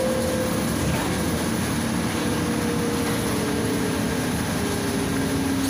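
Cabin sound of a Volgabus 5270G2 city bus under way: its Yuchai YC6L280N natural-gas engine and drivetrain running with a steady hum and road noise, with faint whines that drift slowly in pitch.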